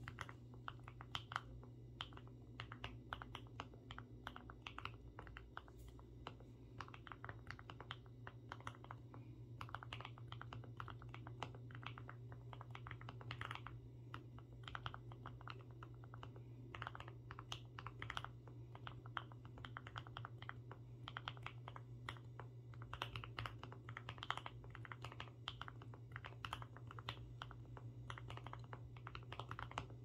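Continuous typing on a GMMK Pro mechanical keyboard with lubed and filmed Banana Split linear switches, Durock V2 stabilizers, ePBT ABS keycaps and an aluminium plate with Poron foam: a fast, uneven stream of keystroke clacks. A steady low hum sits underneath.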